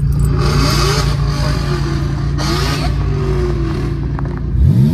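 Car engine running steadily, heard from inside the cabin, then revving up sharply near the end as the car pulls away.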